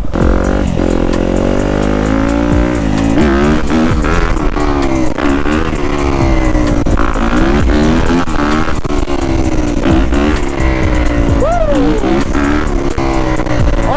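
Yamaha YZ250F dirt bike's single-cylinder four-stroke engine revving hard and shifting up through the gears, its pitch climbing and dropping back again and again.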